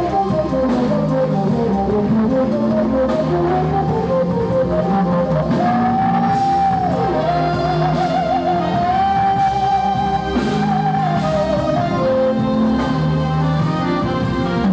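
Live jazz-funk band playing. A keyboard lead voiced through a talk box carries the melody, sliding in pitch and wavering with vibrato near the middle, over bass and drums.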